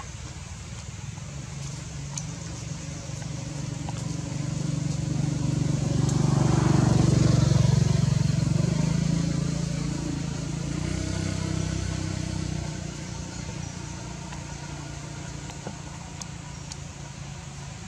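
A motor vehicle's engine passing by: a low drone that grows louder for about seven seconds, then fades away.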